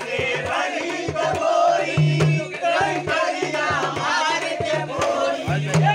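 A crowd of men singing a Holi folk song together in loud chorus, over a steady beat of drum strokes.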